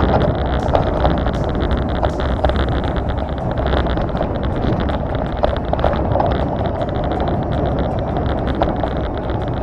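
Wind buffeting the microphone while riding a rough off-road trail, with a steady rumble and frequent small rattles and knocks.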